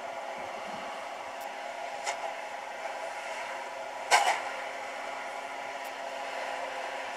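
John Deere combine running steadily as it creeps forward, a constant drone with a steady hum. A sharp clack sounds a little after four seconds, with a fainter one about two seconds in.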